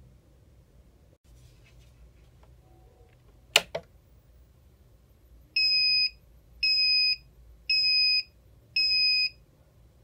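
A sharp double click as the thermal label printer's lid is snapped shut, then the printer's buzzer gives four even, high-pitched beeps, about one a second, with its red error light lit, signalling an error.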